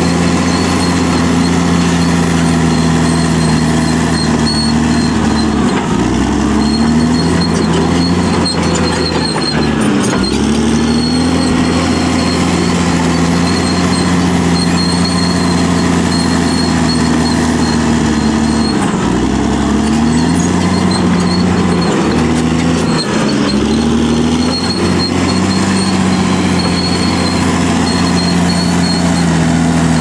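Caterpillar D6R XL crawler bulldozer's diesel engine running under load as the blade pushes soil, its note dipping and then recovering several times as the load changes.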